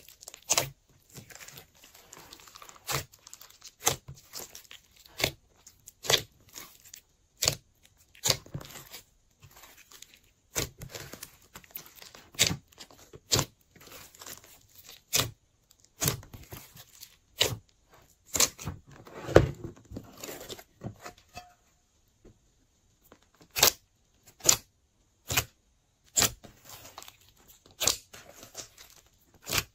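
Glossy slime being kneaded, stretched and folded by hand with clay and glitter mixed in, giving sharp sticky pops about once a second over a soft crackling. The popping pauses briefly a little after the middle.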